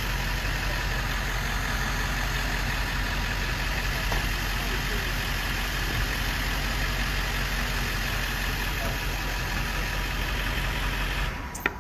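A steady, low mechanical drone, like an engine running, holding one level and cutting off abruptly near the end.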